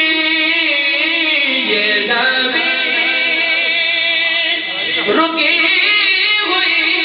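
A man's voice singing a naat, an Urdu devotional poem, in long held, wavering notes with slides in pitch.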